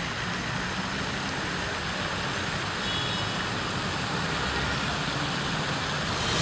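Steady outdoor street ambience: a constant rush of road traffic with no distinct events.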